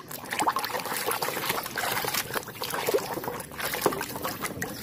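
Muddy water sloshing and splashing in a plastic tub as a hand scrubs a plastic toy cow under the surface, in small irregular splashes.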